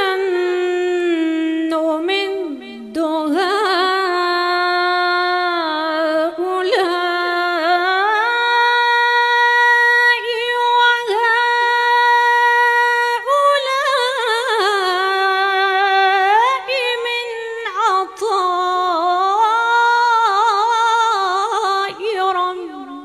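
A woman's solo voice chanting Quran recitation in a melodic Moroccan style. It is one long unaccompanied phrase of long held notes and ornamented turns, with short breaks for breath a couple of times, and it stops near the end.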